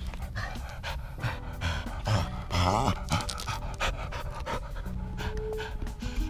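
A dog panting and sniffing close to the microphone in quick, noisy breaths, loudest about two and a half seconds in.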